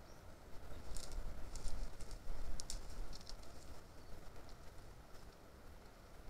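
Outdoor night-time ambience on a trail camera: a low, uneven rumble with scattered short, high-pitched ticks, most of them between about one and three and a half seconds in.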